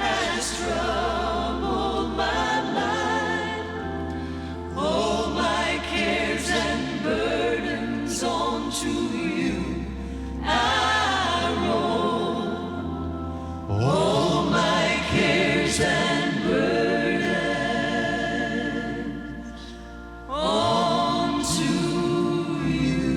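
Gospel choir singing a slow, sustained wordless passage over piano and bass, the phrases swelling and easing, with a brief fall in level just before a loud new phrase about twenty seconds in.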